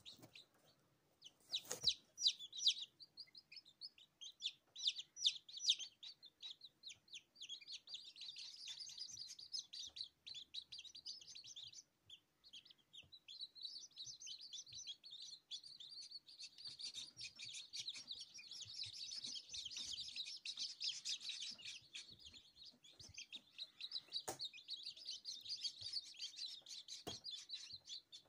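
A brood of newly hatched chicks peeping together: many short, high cheeps overlapping almost without pause, with a brief lull about twelve seconds in. A few sharp clicks stand out, one about two seconds in and two near the end.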